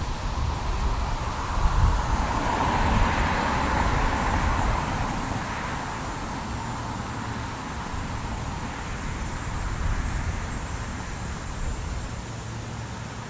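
Road traffic noise, with one vehicle passing that swells and fades a few seconds in, over a low rumble.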